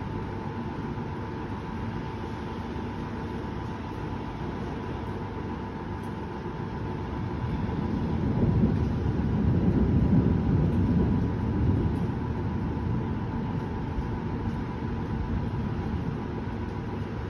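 Distant thunder: a low rumble that builds about seven seconds in, peaks for a few seconds and fades away, over a steady low background rumble.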